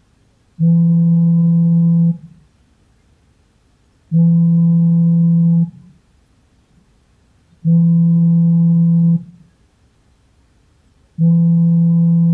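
Samsung smartphone vibrating for an incoming call: four buzzes, each about a second and a half long and one every three and a half seconds. Each buzz is a steady low hum.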